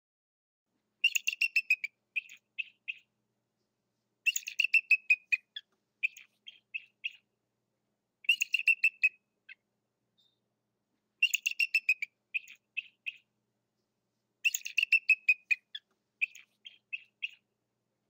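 Bald eagle calling: five bouts of thin, high piping whistles, each a quick run of notes that falls slightly in pitch, followed by a few separate short chirps, about every three seconds.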